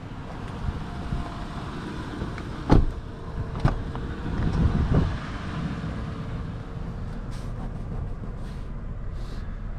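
Handling of the 2017 Toyota 4Runner's doors: a solid knock like a door shutting about three seconds in, then lighter latch clicks and a further knock a couple of seconds later, over steady outdoor background noise.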